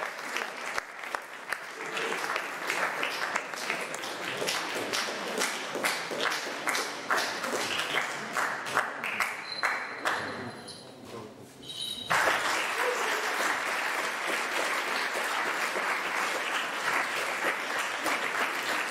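Audience applauding in a hall. The clapping thins out about ten seconds in, then comes back suddenly, full and dense, two seconds later.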